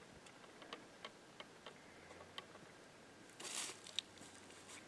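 Faint footsteps on the dry dirt of a riverbank: scattered light clicks and a brief scuff about three and a half seconds in.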